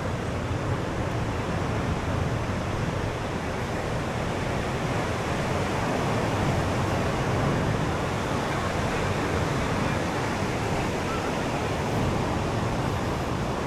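Ocean surf washing onto the beach, a steady rushing noise that swells slightly around the middle.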